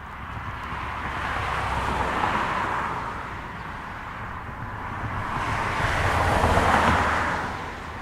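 Two cars passing one after the other, each a rush of road noise that swells and fades. The first passes about two seconds in, and the second, louder one a little over six seconds in.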